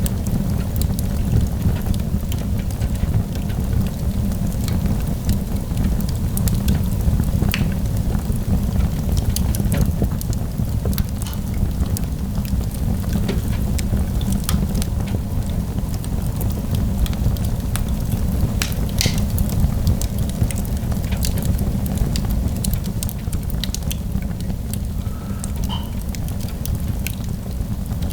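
Wood fire burning in a fireplace: scattered crackles and pops over a steady low rumble.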